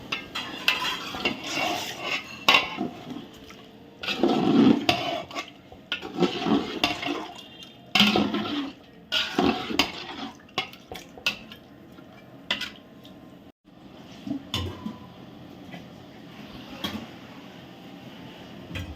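A metal utensil stirring and scraping in a large cooking pot, clanking against it on and off, with fewer strokes in the last few seconds.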